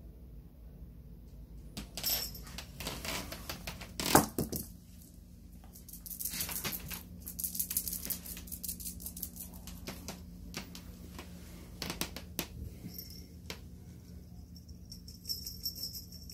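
Rattling, rustling and clicking of a kitten playing with toys and plastic on a wooden floor, in irregular bursts, with one louder clatter about four seconds in.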